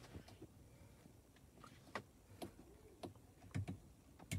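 Light plastic clicks and knocks as the clip of a turbocharger-shaped vent air freshener is pushed into the slats of a car's dashboard AC vent: a few separate clicks from about two seconds in, the sharpest near the end.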